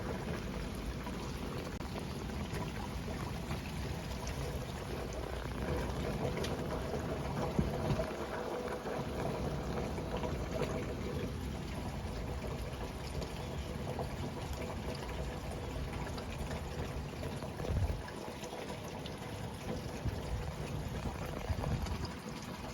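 Water running or pouring steadily.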